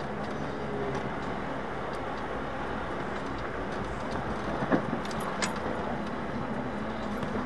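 Off-road vehicle driving along a dirt trail: steady engine and tyre noise on gravel. A sharp knock comes a little past halfway, with a few light clicks and rattles just after.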